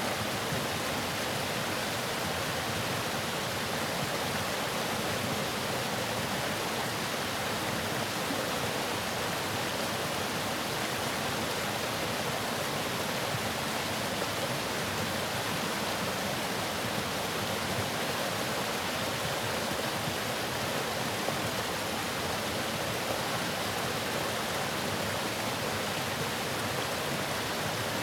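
Waterfall: water pouring and splashing in a steady, even rush with no change in level.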